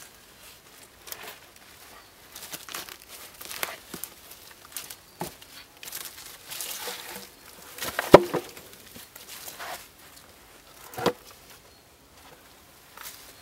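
Dry leaves rustling and crunching as a person shifts about handling wooden boards, with scattered knocks of wood on wood. The loudest is a sharp knock about eight seconds in, and another comes about three seconds later.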